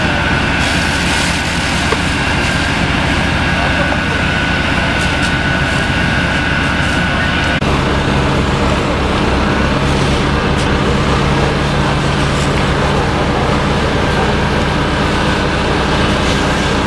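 Fire engines' diesel engines and pumps running steadily: a loud, low drone under a broad hiss. The drone's pitch changes abruptly about seven and a half seconds in.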